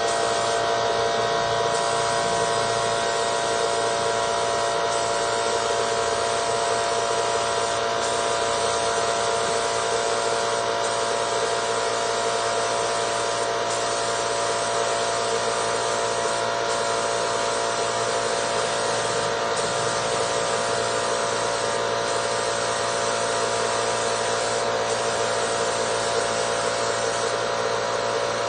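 Electric motor running steadily with a rush of air, as from paint-shop air equipment; a constant whirr and hiss with fixed tones through it that does not change.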